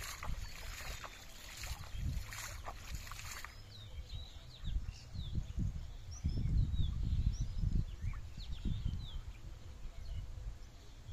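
Water splashing and swishing as a fishing net is swept through a shallow pond, for about the first three seconds. Then small birds chirp for several seconds over intermittent low rumbling.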